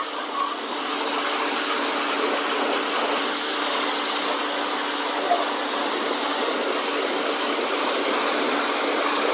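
Electric pressure washer running: the steady hum of its 1800 W motor and pump under the loud hiss of a high-pressure water jet spraying against brick.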